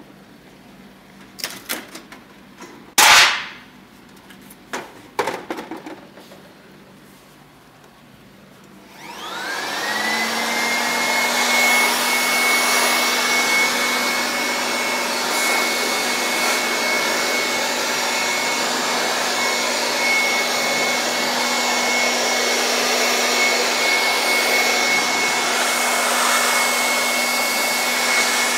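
A few knocks and clicks of handling, the loudest about three seconds in, then about nine seconds in a handheld electric dust blower starts up. Its motor whine rises and settles into a steady high whine over a rush of air as it blows dust out of an open desktop computer case.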